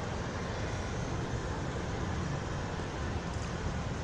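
Steady low rumbling background noise with a faint hiss above it and no distinct events.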